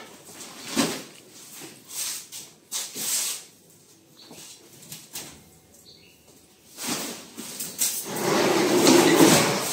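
Rustling and knocking as sacks and boxes are handled and moved, then, about eight seconds in, a longer, louder scraping as a wooden stand is dragged across the concrete floor.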